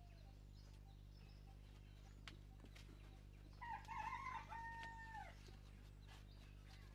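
A rooster crows once, faintly, about three and a half seconds in. The crow ends in a held note that drops at the end, over a steady low hum.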